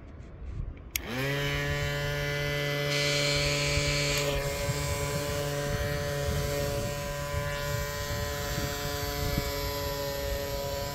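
Small battery-powered DC motor of a blue hand-held mini fan, the propeller of a plastic-bottle toy air boat, switched on about a second in, spinning up quickly and then running with a steady electric whine.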